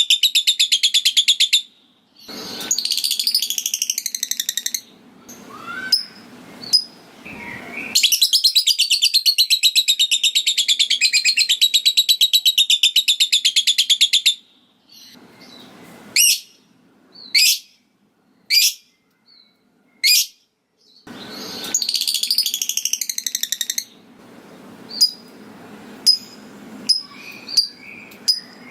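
Lovebird 'ngekek': long bouts of fast, evenly pulsed high chattering, the longest about six seconds, with single sharp chirps in between.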